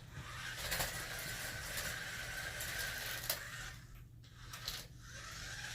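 Small electric motor and plastic gearbox of a battery-powered remote-control toy car whirring as it drives. The whir stops for about a second around four seconds in, then starts again.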